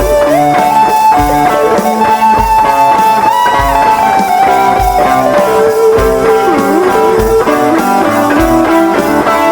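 Intro music: a loud electric-guitar tune in a blues-rock style, with a steady beat and bending guitar notes.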